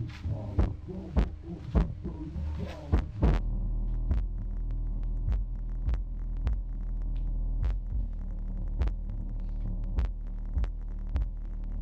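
Rewound Audiobahn 15-inch car subwoofer playing bass-heavy music: a deep throbbing bass with a regular beat, about one and a half hits a second. About three seconds in, the higher parts drop away and a sustained deep bass note carries on under the beat. The amplifier lacks the power to drive it, as the owner judges.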